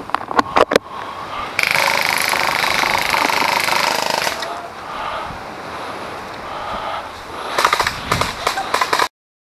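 Airsoft guns firing: a few sharp shots, then a sustained full-auto burst of about three seconds, and another quick flurry of shots near the end, after which the sound cuts off suddenly.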